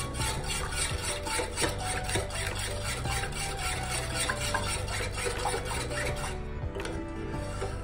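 A spoon stirring milk and condensed milk in a steel saucepan, with background music.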